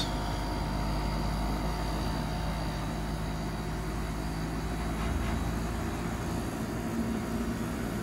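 2023 TGM (Midea) 2-ton central air conditioner condenser running in its slow startup, its DC inverter motor still ramping up: a steady hum with a few steady tones over it.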